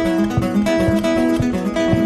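Music led by acoustic guitar, plucked and strummed, with held notes ringing over a steady rhythm.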